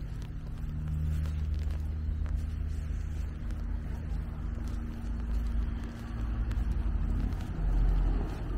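Low, steady rumble of a motor vehicle's engine running, with a held hum that stops about seven seconds in; a louder low rumble follows near the end.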